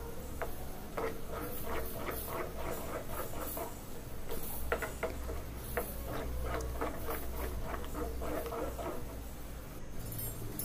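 Wooden spatula stirring thick rava halwa in a nonstick pan: irregular soft scraping and squelching strokes, over a low steady hum.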